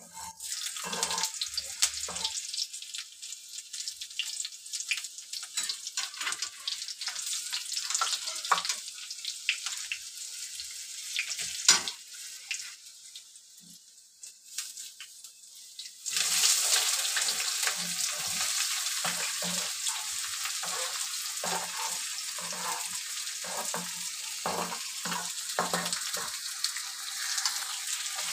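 Chopped chillies and spices sizzling in hot oil in a steel kadhai, with a metal spatula scraping the pan. About sixteen seconds in, chopped onions go into the oil and the sizzle jumps louder, with repeated spatula knocks against the pan as they are stirred.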